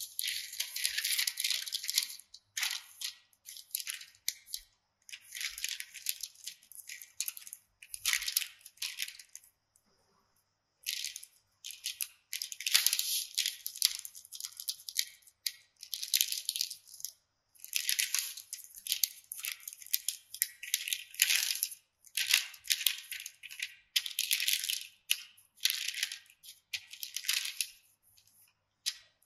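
Baking parchment crinkling and rustling in repeated strokes as a wooden rolling pin rolls out dough between two sheets, with a short pause about ten seconds in.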